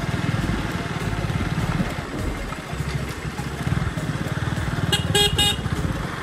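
Motorcycle engine running steadily under the rider, with a few short vehicle-horn beeps about five seconds in.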